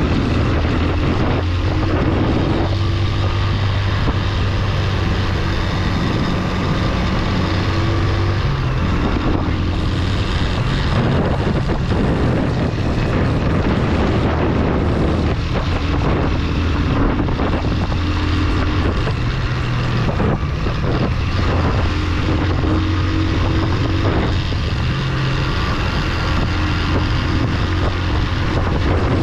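Motorcycle engine running under load on an off-road climb, its pitch shifting every few seconds as the throttle and gears change, with wind noise on the microphone.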